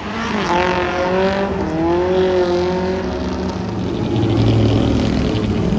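Mini stock race cars' four-cylinder engines at racing speed, one engine note dropping in pitch as a car goes by, then rising and falling again. A deeper, louder engine rumble takes over after about three and a half seconds.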